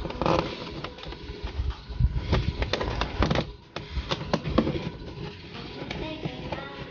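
Irregular clicks, knocks and rustling of hands pushing a dash cam's cable into a car's plastic interior trim to hide it.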